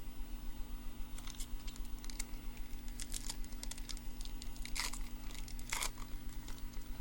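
Baseball trading cards and their foil pack wrapper being handled: a scattering of short rustles and crinkles, with two longer scrapes about five and six seconds in.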